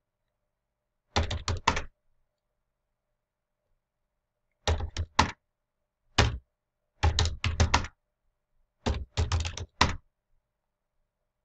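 Computer keyboard being typed on: five short bursts of a few keystrokes each, with pauses between them, as numbers are entered into fields.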